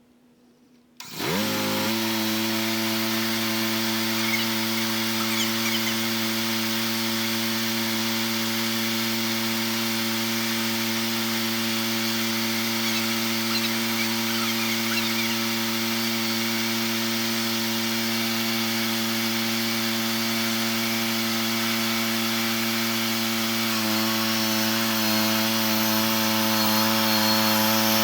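A sawmill's motor starts about a second in, rising quickly to speed, then runs at a steady pitch while the saw cuts through a cedar log. Near the end the pitch wavers and it grows a little louder as the cut loads it.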